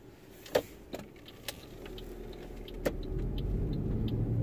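A few sharp clicks and knocks, then a car's low rumble growing louder about three seconds in.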